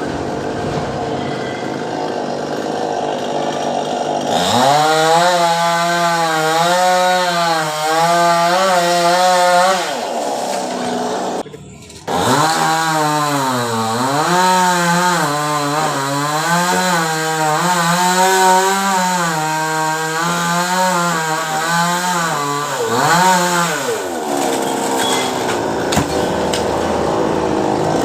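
Chainsaw cutting a coconut palm, running at high revs with its pitch dipping and rising as the chain meets the wood. It cuts in two long stretches broken by a short dropout, with a rougher, unpitched noise before and after.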